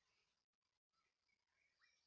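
Near silence, with faint bird chirps in the background; the sound drops out completely twice, briefly.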